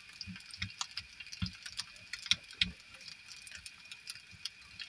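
Metal spoon stirring instant peanut sauce with water on a plate, clinking and scraping against it in irregular clicks and soft knocks. Under it, a steady faint hiss of an egg frying in a pan on a portable gas stove.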